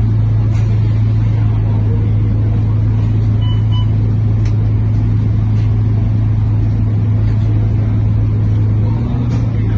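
Cabin drone of a Scania K230UB city bus's diesel engine and ZF automatic gearbox, holding one steady pitch while the bus cruises, with road noise underneath.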